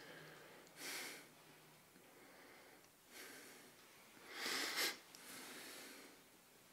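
A man breathing close to the microphone: about four soft rushes of breath, the loudest about four and a half seconds in.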